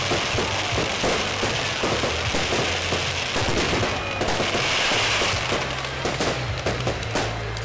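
New Year's fireworks going off: rapid, overlapping crackling and banging of firecrackers and bursting rockets, with a louder rushing hiss about halfway through.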